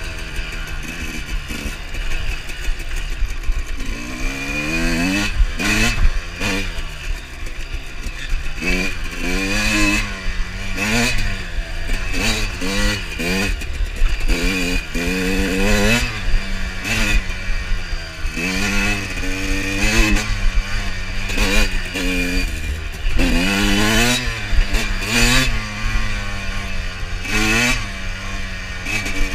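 Two-stroke Suzuki RM motocross bike engine heard from on board, ridden on a dirt track. It runs at fairly low revs for the first few seconds, then is revved up and eased off over and over, about once a second.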